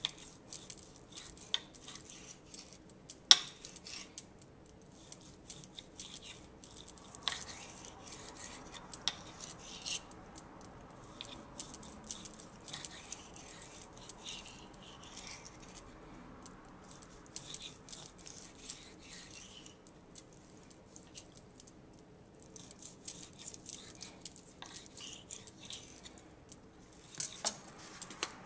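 Knife slicing raw steak into strips on a hard cutting surface: irregular light clicks and taps of the blade against the board, with a few sharper knocks, the loudest about three seconds in.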